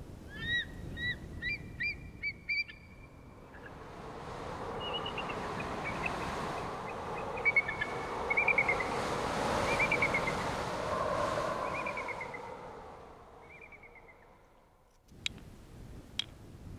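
Wild birds calling outdoors in a run of short, quick calls. A rushing, wind-like swell of noise then rises and falls, with more chirping trills over it. A few sharp clicks follow near the end.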